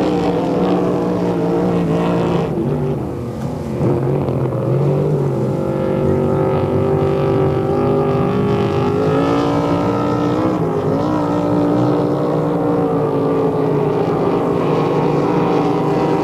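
Racing motorboat engines running. Several engine notes overlap and rise and fall in pitch, with a short dip about three seconds in before they swell again.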